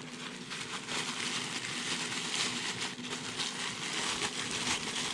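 Packaging being opened: continuous crinkling and rustling of wrapping, with small clicks and crackles, as a parts box is unpacked by hand.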